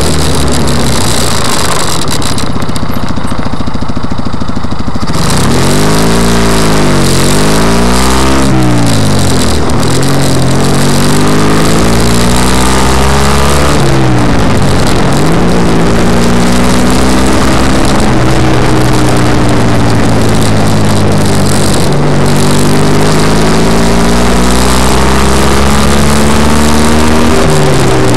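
Joyner 650cc buggy's engine under way on the road, its pitch repeatedly climbing under acceleration and dropping sharply at each gear change, several times. Heavy wind and road noise run under the engine, the open buggy's wind hitting the microphone.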